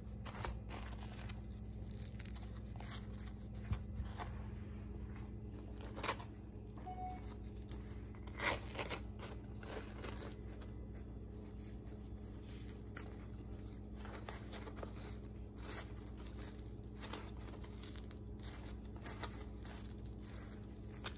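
Hands squeezing and pulling apart soft freshly cooked batbout (Moroccan pan bread), making quiet rustling and soft tearing sounds, with a few louder crackles now and then.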